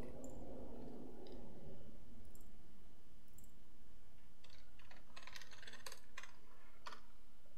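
A few single mouse clicks, then a quick run of keystrokes on a computer keyboard starting about four and a half seconds in and lasting a couple of seconds: a file name being typed.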